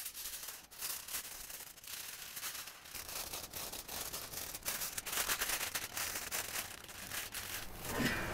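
Aluminium foil crinkling and crackling as it is folded and crimped by hand around a brisket, in a dense, irregular run of small crackles.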